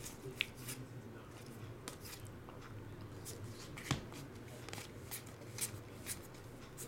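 Trading cards being flipped through one at a time, the card stock sliding and flicking between the hands in a run of faint, irregular clicks, a few sharper than the rest. A faint steady low hum sits underneath.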